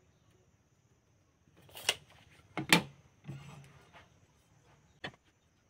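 Hand tools being handled on a wooden workbench: two sharp clicks about two and three seconds in, a short rustling scrape after them, and another click near the end, all fairly faint.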